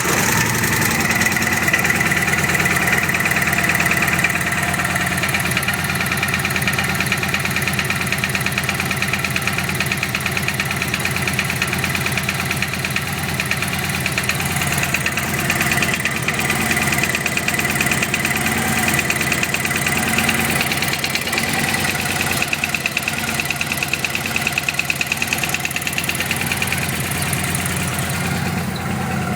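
Chevrolet Vega four-cylinder engine idling with a loud, rapid knock.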